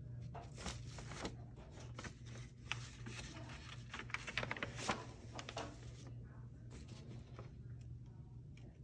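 Rustling, light scraping and small clicks of things being handled by hand, busiest in the first six seconds, over a low steady hum.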